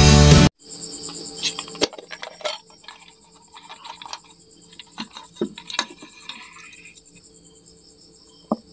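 Background music cuts off abruptly about half a second in. After it come scattered clicks, knocks and light scraping of a cylindrical LED bulb being taken apart, its plastic housing prised open with a wooden stick and its aluminium heat-sink plate lifted out. Crickets chirr steadily throughout.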